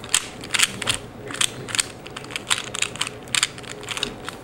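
A 3x3 Rubik's cube being turned quickly, its plastic layers clacking with each move, about two to three turns a second in irregular clusters.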